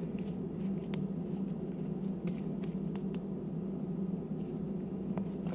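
Steady low background hum with a few faint, sharp clicks, about one every two seconds.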